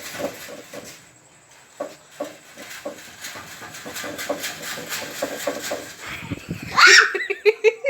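Metal gate bars being shaken and banged, a rapid irregular clatter. Near the end a loud, high, wavering cry breaks in.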